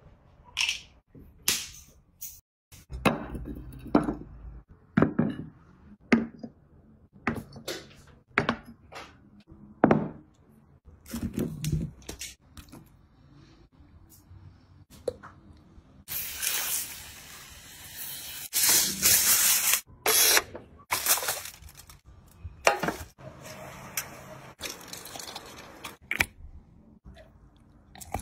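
A large sea snail being handled and pried from its shell on a wet, hard surface: a run of sharp clicks and knocks of shell, with wet squishing of the flesh. A few seconds of hissing noise come about two-thirds through.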